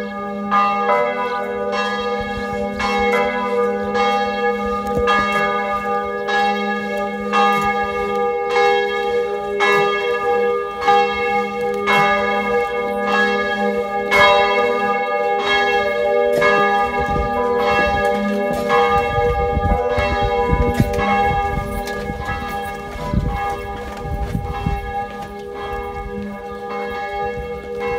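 Church bell tolling steadily, struck about four times every three seconds, its tone ringing on between strokes.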